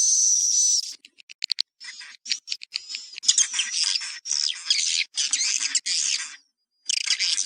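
Recorded swiftlet twittering used as a roosting lure call for swiftlet houses. A steady high whine stops about a second in, followed by bursts of rapid high chirps, clicks and trills, with a short pause near the end.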